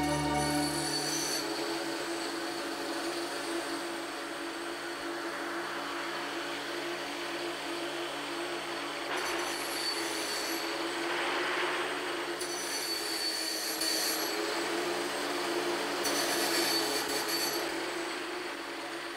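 A suspense drone from a horror soundtrack: a steady low tone under a hiss, with a high shimmer that swells in four times.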